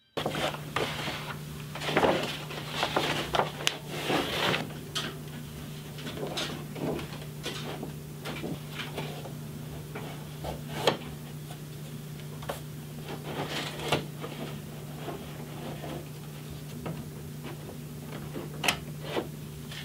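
Stiff brown paper being handled, creased and pressed against a car firewall to shape a paper template, giving irregular rustles, crinkles and sharp clicks over a steady low hum. Near the end, scissors snip into the paper.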